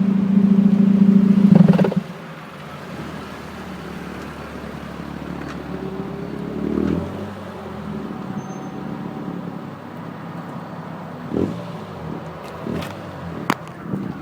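Car exhaust at high revs for about two seconds, then the revs drop sharply and the engine settles to a steady idle. There is a short rise in revs about seven seconds in, and a few clicks near the end.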